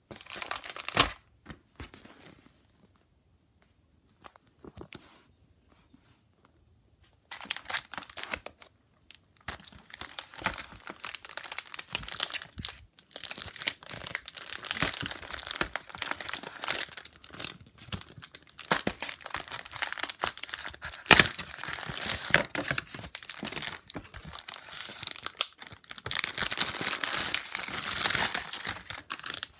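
Cellophane wrapping and plastic candy packets crinkling and tearing as they are handled and opened. There are a couple of brief crinkles, then a few seconds of near quiet, then steady crackling from about seven seconds in with occasional sharper snaps.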